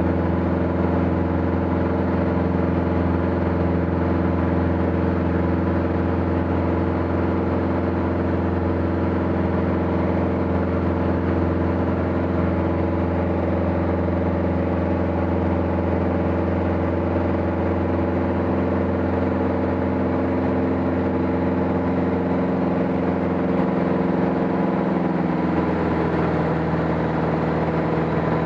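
Aircraft engine running steadily with an even, unbroken drone, dropping slightly in pitch about 25 seconds in.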